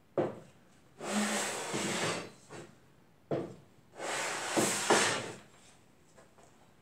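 A warped small-engine cylinder head being lapped flat by hand on sandpaper: two long scraping strokes about three seconds apart as it is pushed across the paper, each preceded by a short knock. The sanding is milling the head's warped gasket face back down flat.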